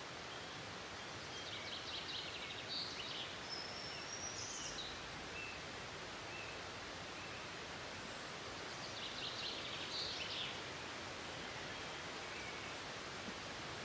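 Steady rushing of a waterfall, with small songbirds chirping and trilling over it in two spells: from about a second in, with a short rising whistle around four seconds, and again about nine seconds in.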